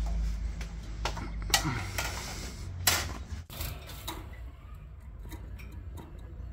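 A few sharp, irregular clicks and taps over a low steady hum, the loudest about a second and a half and three seconds in.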